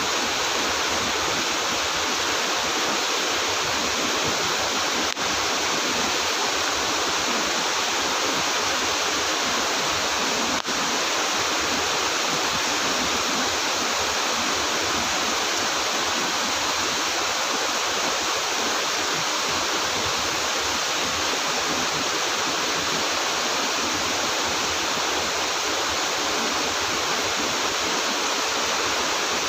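Heavy rain falling steadily, a dense even hiss of water with no let-up.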